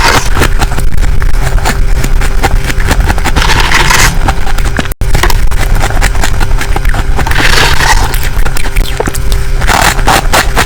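Freezer frost being crunched close to the microphone: a dense run of loud crackling crunches, over a steady low hum, with a brief break about five seconds in.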